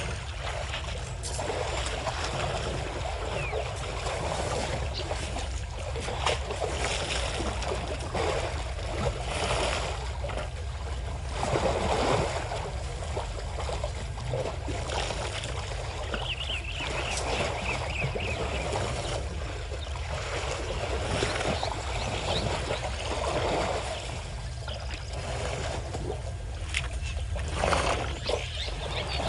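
African elephants splashing and sloshing water in a waterhole as a calf swims and wallows among the adults, the water noise coming in irregular surges every few seconds.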